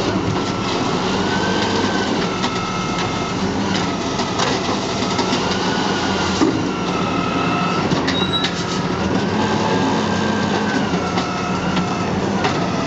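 Garbage truck running, its engine humming steadily under a high whine that rises and falls again and again as the hydraulics work, with scattered clanks.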